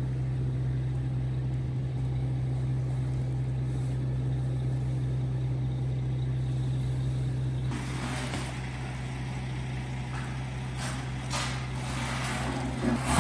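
Septic pump truck's engine and vacuum pump running steadily, a low mechanical drone while the hose draws out the tank. The hum eases about two-thirds of the way through, and a few short bursts of hiss follow.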